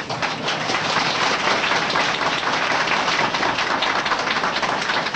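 Audience applauding, a dense spread of clapping that starts suddenly.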